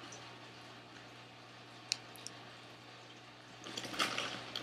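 Faint eating and handling sounds of baked barbecue chips and a plastic dipping-sauce cup: a single sharp click about two seconds in, then a short spell of soft crackling near the end.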